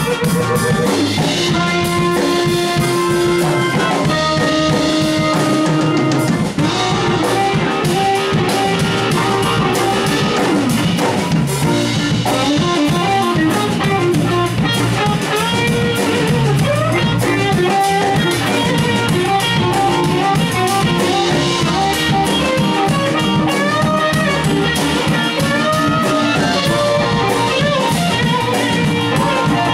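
Blues band playing an instrumental passage with no vocals: a guitar lead with bending notes over a drum kit.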